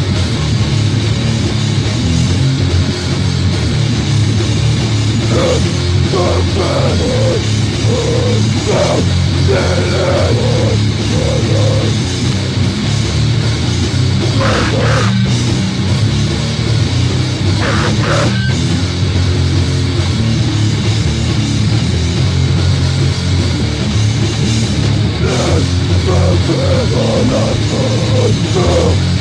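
Loud, dense distorted heavy music in a punk/metal vein, with drums, at an even level throughout.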